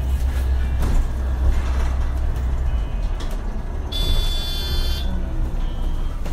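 MAN Lion's City Hybrid city bus running with a low rumble that eases about three seconds in. About four seconds in, a high electronic beep sounds for about a second.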